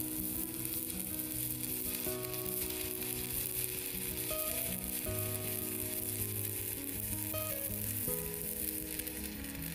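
Stick (SMAW) welding arc from a Kachi MK-120A mini inverter welder: a steady crackling sizzle as an electrode burns, the fifth rod run back to back with the welder under continuous load. A tune plays underneath.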